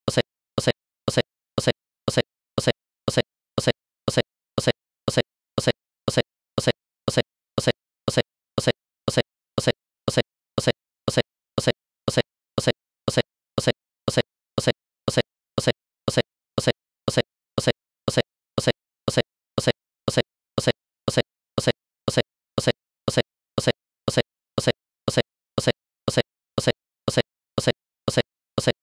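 A steady train of short, evenly spaced pops, about three a second, with silence between them and no change in rate or loudness.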